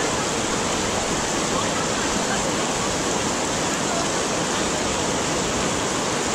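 Heavy rain falling steadily, a dense even rush of water with no letup.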